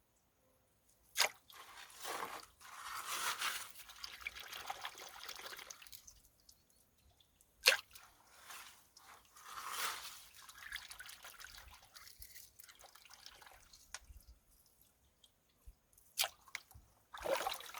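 Gold pan being worked in creek water: water sloshing and running off the pan in surges every few seconds, with sharp clacks of rocks in the pan, loudest about a second in, near the middle and near the end.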